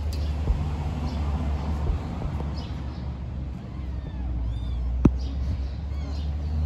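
Steady low outdoor rumble, with a few faint high chirps about four and a half seconds in and a single sharp click just after.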